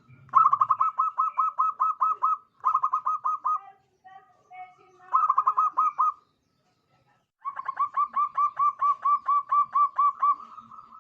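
Local zebra dove (perkutut) singing. It gives rapid runs of short, evenly spaced cooing notes, about five or six a second, in four bouts separated by short pauses, and the longest bout comes near the end.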